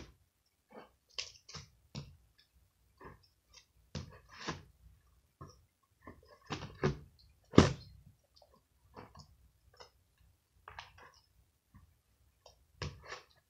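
Slime being squished and kneaded by hand, giving irregular wet clicks and small pops, the sharpest about seven and a half seconds in.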